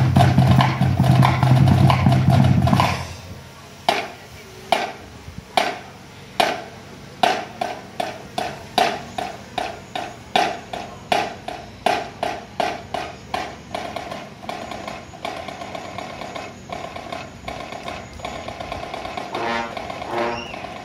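Marching band playing with heavy drumming, which stops abruptly about three seconds in. A run of sharp, ringing percussion strikes follows, spaced out at first and then coming faster. Near the end the brass section comes in with sustained chords.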